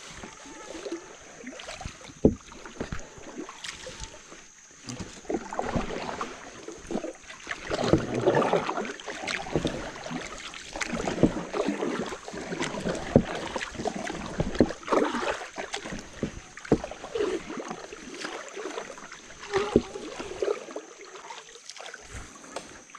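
Paddles dipping and splashing through the water beside a small paddled river boat, in irregular strokes with occasional sharp knocks.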